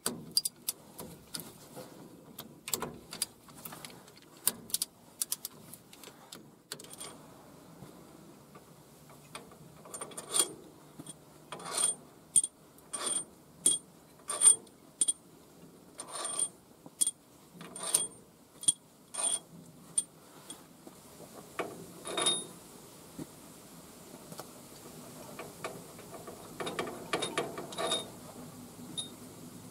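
Ratchet wrench clicking as the rocker-arm assembly bolts on a Nissan SD22 diesel's cylinder head are undone. Sharp metallic clicks with a slight ring come in a series, a little under one a second through the middle, and more scattered at the start and near the end.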